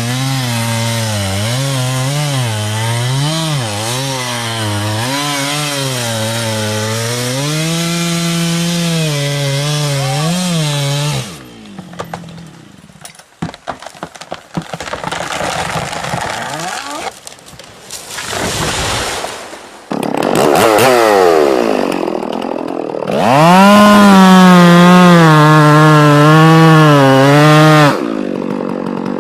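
Two-stroke chainsaw running under load, its engine pitch rising and falling as it cuts. It drops away about 11 seconds in, leaving scattered knocks and crackling for several seconds, then revs up hard again for the rest of the time.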